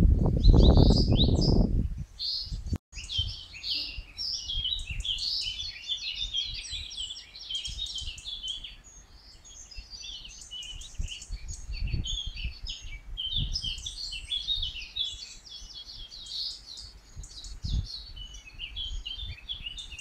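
Many small songbirds singing at once, a dense overlapping chorus of high chirps and short phrases. A low rumble fills the first couple of seconds, followed by a brief drop-out before the birdsong takes over.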